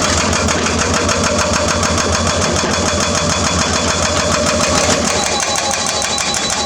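The diesel engine of a heavy construction machine runs steadily with a rapid, even clatter over a deep rumble.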